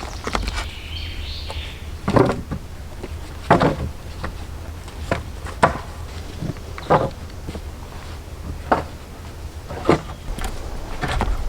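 A series of irregular knocks and thuds, about one every second or two, some heavier than others, over a steady low rumble.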